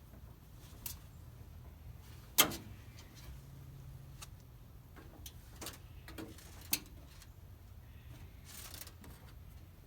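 A few sharp cracks and clicks, the loudest about two and a half seconds in and another near seven seconds: a dead branch being snapped and handled.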